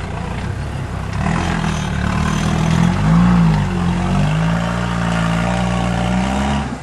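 Off-road trial vehicle's engine working hard under load as it crawls up a steep rock slab, revving up and back down about three seconds in and otherwise holding steady revs.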